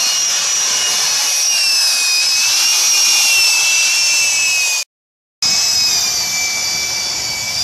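Electric drill spinning a wire brush against the bus's steel roof gutter, scouring off Bondo body filler: a steady high whine over a harsh scraping noise. It cuts out abruptly for about half a second near five seconds in, then carries on.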